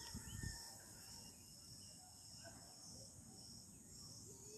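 Near silence: a faint, steady, high-pitched background hiss.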